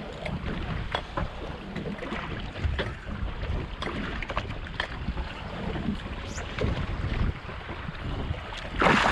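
Wind buffeting the microphone over water sloshing against a small boat's hull, with scattered light clicks and knocks, and a louder rush of noise near the end.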